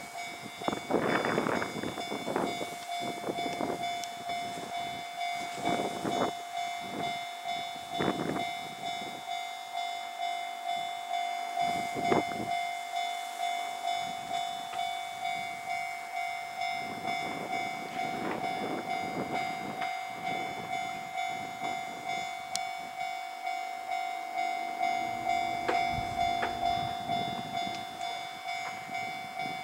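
Japanese level-crossing alarm ringing over and over in a steady, even rhythm, each strike dying away before the next. Now and then short bursts of wheel-on-rail noise from a passing train cut in, the loudest about twelve seconds in.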